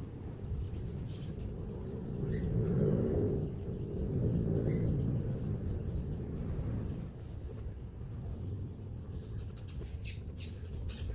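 A steady low rumble of background noise that swells twice in the first half, with a few short, faint high chirps over it.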